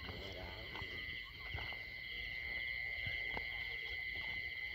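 A chorus of insects trilling steadily in high, finely pulsing tones, with a few faint scattered knocks.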